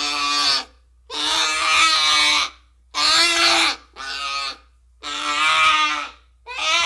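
Baby Tyrannosaurus rex sound effect: a string of about six pitched creature calls, each lasting roughly half a second to a second and a half, with short silent gaps between them.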